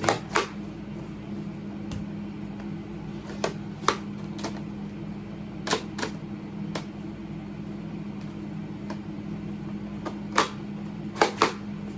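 Scattered clicks and knocks of plastic toy water blasters being handled, about ten spread irregularly, two close together near the end, over a steady low hum.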